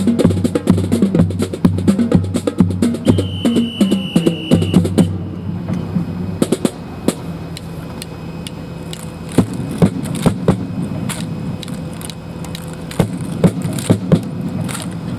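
Percussion music with a steady drum beat that stops about five seconds in, with a whistle blast held for about a second and a half just before it ends. After that come scattered sharp knocks and clacks, typical of drill rifles being slapped and grounded in a fancy drill routine.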